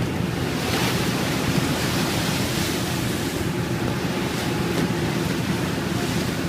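Rough, storm-driven sea rushing against a ferry with wind blowing across the microphone, over the steady drone of the ship's engines. The water surges louder about a second in and again around two and a half seconds.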